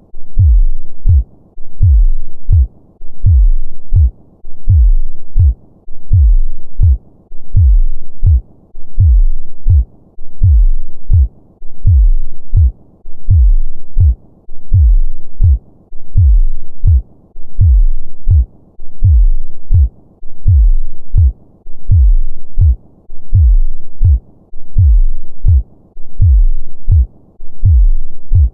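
Normal human heartbeat: deep, low thuds in a steady, even rhythm, a little more than one beat a second.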